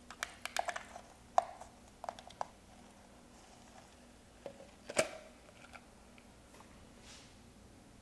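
Hands working a small plastic self-watering pot of LECA clay pebbles: scattered clicks and knocks. The sharpest come about one and a half seconds in and again at about five seconds.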